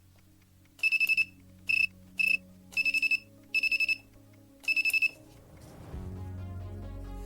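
Electronic beeper sounding six short bursts of rapid high-pitched beeps, some bursts longer than others, over a faint low hum. Music comes in about six seconds in.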